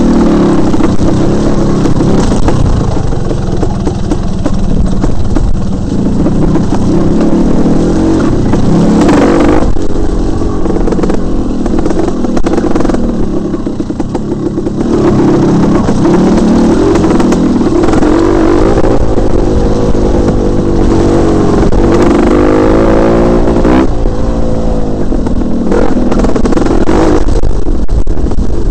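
Dirt bike engine running under load along a rough trail, revving up and down repeatedly with the throttle, with a dip in revs about halfway through.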